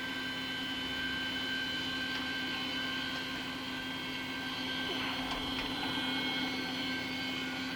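Brown & Sharpe 814U cylindrical grinder running with its belt-driven internal-grinding spindle spinning and the headstock turning: a steady whine made of several high tones over a lower hum.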